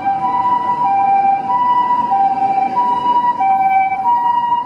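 Ambulance siren in the Japanese two-tone 'pii-poo' pattern, alternating steadily between a higher and a lower note about every two-thirds of a second, over road traffic noise.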